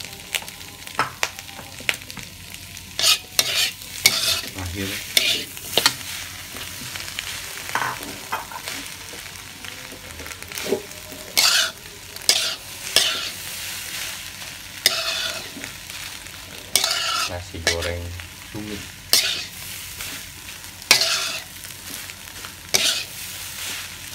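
Spatula scraping and tossing food in a wok over a steady sizzle as chopped aromatics and rice stir-fry; irregular scrapes and clinks of the spatula against the wok are the loudest sounds.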